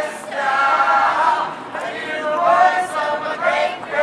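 A group of people singing together in the street, mostly unaccompanied, in phrases of long held notes.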